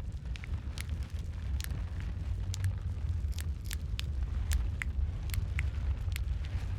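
Wood fire crackling in a fireplace: sharp pops and snaps about twice a second over a steady low rumble of burning.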